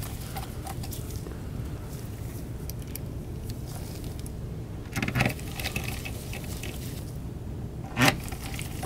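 Small metal laptop screws clicking and rattling lightly as gloved hands pick them up and handle them, with two louder, brief handling sounds about five and eight seconds in.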